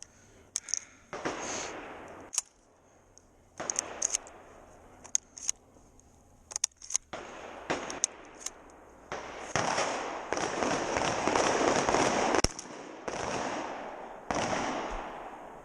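Shotgun being fired and its action worked by hand: sharp metallic clacks scattered through, and several sudden blasts with a long noisy tail, the densest run near the end. The gun is not cycling its rounds, so the shooter is clearing it by hand between shots.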